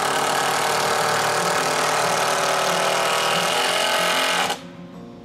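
Power drill running steadily in the wooden frame of a solar-panel rack, then cutting off suddenly about four and a half seconds in.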